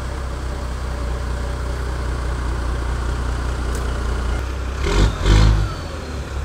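Military-style cargo truck's engine running with a steady low rumble as it drives slowly. About five seconds in come two short, loud bursts of noise.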